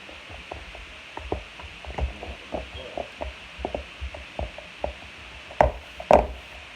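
Slime worked by hand, making a run of short wet clicks and pops, about two or three a second, with two louder pops near the end.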